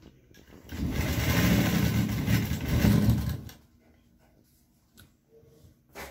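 Seiko sewing machine stitching a seam: it starts about a second in, runs steadily for nearly three seconds, then stops, leaving a couple of faint clicks.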